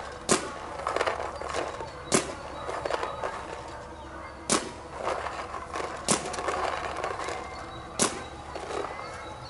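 Paintball marker firing single shots: five sharp pops roughly two seconds apart, with fainter clicks in between.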